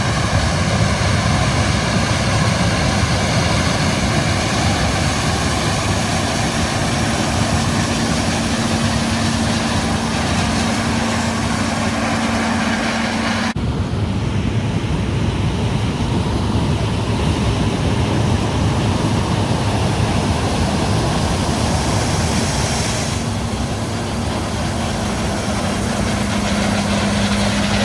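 Large farm tractor's diesel engine running steadily. A steady whine comes in a few seconds in and again near the end. The sound changes abruptly about halfway through.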